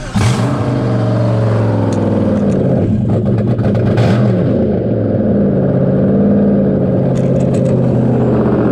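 A GM 5.3-litre LS V8 (from a 2003 GMC Yukon XL) firing up for the first time in its new car and running steadily, its speed wavering slightly.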